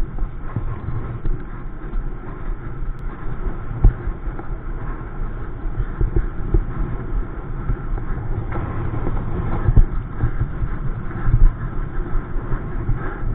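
Wind buffeting a camera microphone on a bicycle ridden at racing speed: a steady low rumble with sudden louder gusty thumps a few times.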